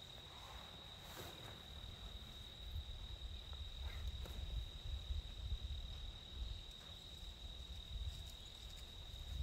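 Crickets singing in a steady, high-pitched drone, faint, with a low uneven rumble underneath.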